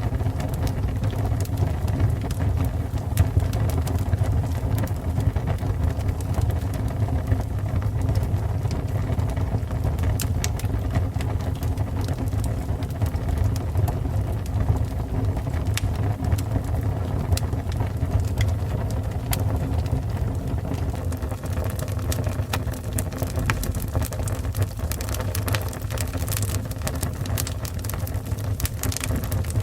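A fire burning: a steady low roar of flames with frequent small, sharp crackles and pops scattered throughout.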